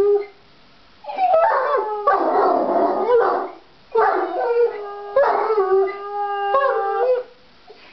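A Jack Russell terrier and an Irish Wolfhound howling, long wavering howls in two bouts with a short pause between, begging to be taken for a walk.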